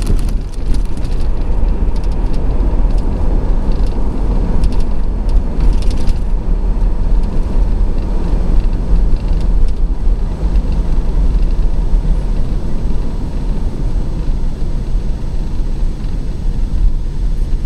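Pickup truck driving on a highway, heard from inside the cab: a steady low rumble of engine, tyres and wind.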